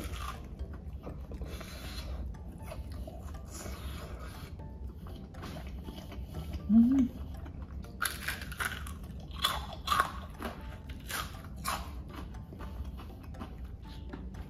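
Close-up eating of battered deep-fried giant squid: chewing, then a run of crisp crunching bites into the fried batter from about eight seconds in. A short low hum is heard near the middle.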